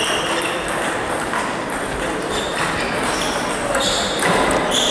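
Table tennis hall ambience: irregular clicks and pings of celluloid-type balls striking tables and bats at several tables, over a constant murmur of background chatter.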